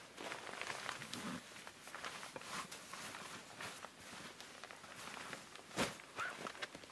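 Rustling and small knocks of gear being handled at a backpack, with boots shifting in snow; a single sharp knock near the end.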